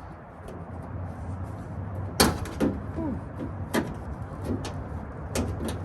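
Sharp clicks and knocks of parts being handled on a car door lock during fitting: a loud click about two seconds in, another near four seconds, and a quick cluster near the end.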